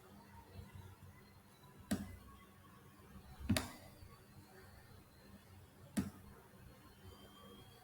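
Three single computer mouse clicks, spaced a second or two apart, over faint room noise.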